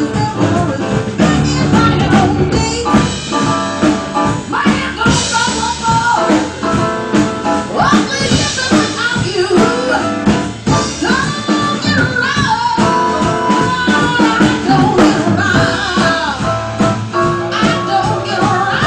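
Live band music: a singer at the microphone with keyboard and drums behind.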